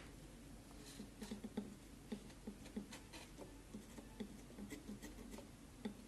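Faint, irregular small clicks and taps from hand tools working on a phone circuit board, with a low steady hum underneath.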